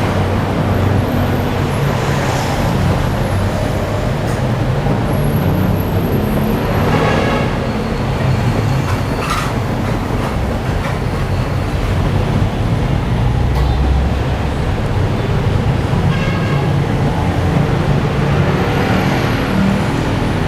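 Busy road traffic: vehicle engines running in a steady loud rumble, with a couple of short horn toots.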